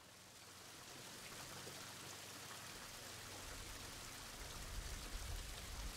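Water trickling and splashing steadily down a wet, mossy canal lock gate, faint, fading in over the first second. A low rumble joins in the last couple of seconds.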